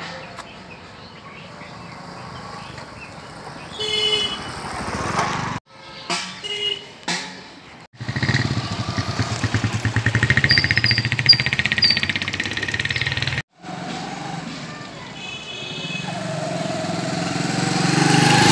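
Small motorcycles riding slowly along a narrow lane, engines running with an even pulsing beat. The sound breaks off abruptly a few times. Near the end one motorcycle grows steadily louder as it comes up close.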